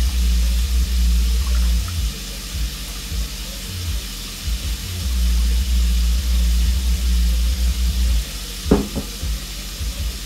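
Lemonade poured from a plastic pitcher into a plastic cup, under a low rumble that comes and goes. A single clunk sounds near the end.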